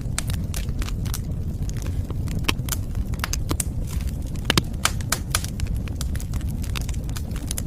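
Wood fire crackling: irregular sharp pops and snaps over a steady low rumble, with a louder pop about four and a half seconds in.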